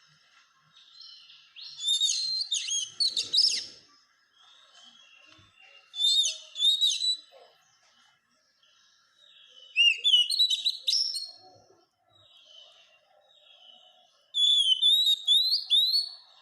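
Oriental magpie-robin singing four loud phrases of varied whistles and sweeping notes, a few seconds apart, with softer twittering between them.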